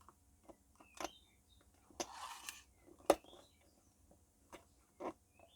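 Faint small clicks and taps as clock hands are handled and pressed onto the spindle of a battery wall-clock movement, with the sharpest click about three seconds in and a brief rustle just before it.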